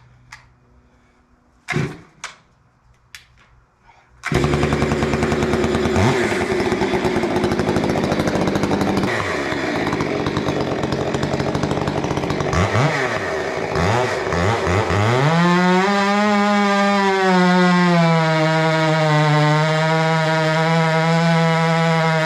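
A few knocks, then a small gasoline engine starts abruptly about four seconds in and runs. It revs up and down a few times, then holds a steady high speed.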